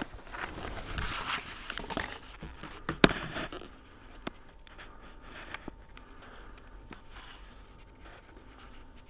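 Rustling and scraping handling noise with a sharp click about three seconds in, then quieter with scattered faint ticks.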